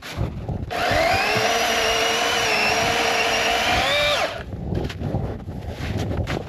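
Master Force 80 V MAX battery chainsaw's electric motor spinning up under the trigger, running with a steady whine for about three and a half seconds, its pitch lifting just before it stops.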